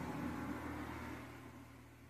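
A car's engine noise that comes in suddenly and fades away over about two seconds, over a steady low electrical hum.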